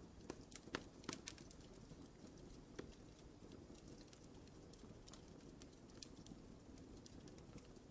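Wood fire crackling in a fireplace: faint, irregular pops and snaps over a low, steady rush of flame. The loudest few pops come together about a second in.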